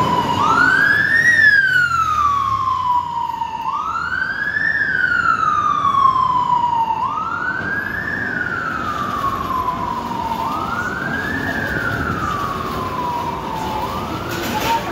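Emergency vehicle siren wailing: each cycle rises quickly and falls slowly, repeating about every three and a half seconds, with a last fainter cycle near the end. Street traffic runs steadily underneath.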